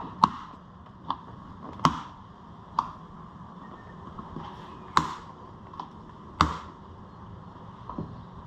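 Parts being handled during work on an ATV airbox: a string of sharp, irregular clicks and knocks, four of them louder than the rest.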